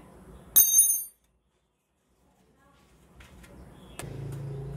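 A single sharp metallic clink about half a second in, ringing high and dying away within half a second. Near the end a click is followed by a low steady hum.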